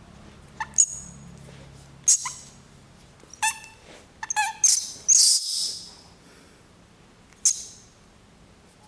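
A small animal's short, high-pitched squeaking calls, several in quick succession, with a harsh hissing screech about five seconds in and one more squeak near the end.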